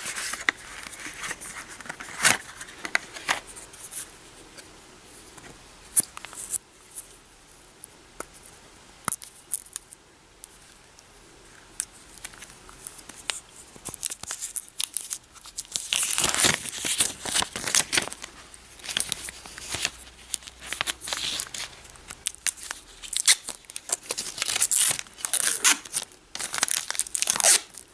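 Hands handling a cardboard box and a 2nd-generation Amazon Echo Dot, then peeling a clear plastic protective film off the device. There are scattered clicks and scrapes at first, then a denser stretch of crinkly rustling from about halfway through.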